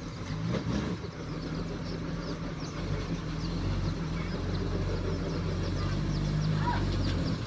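Diesel engine of heavy earthmoving equipment (a bulldozer or dump truck) running steadily, growing gradually louder as the machine works nearer.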